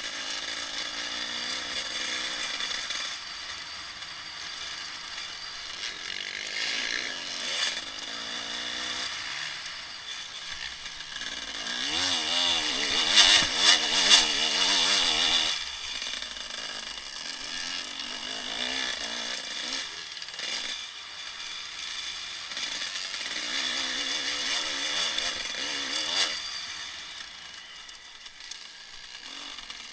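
Dirt bike engine heard from the rider's helmet, revving up and falling back repeatedly as the bike is ridden hard along the track. It is loudest in a sustained high-revving run near the middle and eases off near the end.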